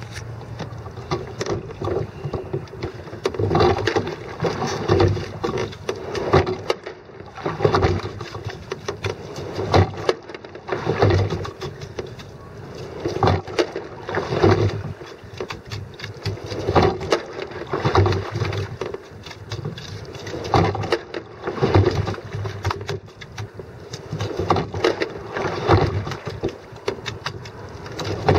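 Sculling boat being rowed: oars knocking in their oarlocks and blades splashing in the water, in a steady stroke rhythm of about one stroke every three and a half seconds, each stroke bringing two bursts about a second apart.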